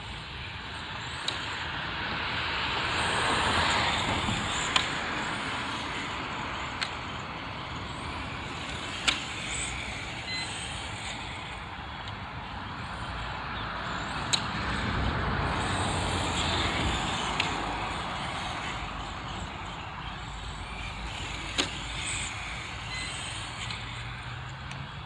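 Electric 1/10-scale RC touring car (Serpent Project 4X) on foam tyres running laps on asphalt: a hiss of tyres and drivetrain with motor whine that swells twice as the car passes close. A few short sharp clicks come and go.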